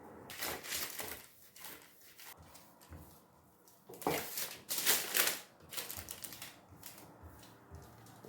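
A run of crisp, irregular scraping and crunching handling noises, loudest in a cluster about four to five and a half seconds in.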